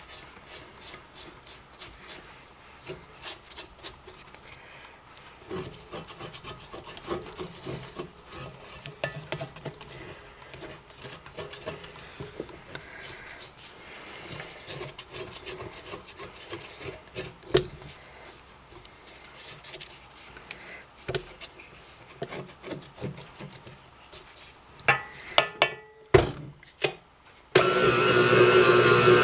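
A spatula scraping dough down the sides of a stainless steel mixing bowl in irregular rubbing strokes, with occasional clicks against the metal. Near the end a KitchenAid stand mixer starts and runs with a steady whir.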